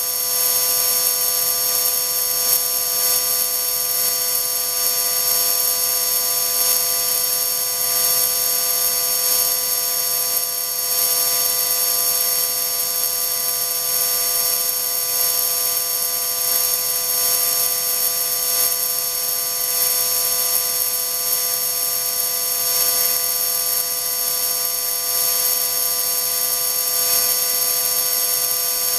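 High-speed electric motor spinning steadily at about 30,000 rpm on a test rig, giving a steady high-pitched whine made of several tones over a loud hiss.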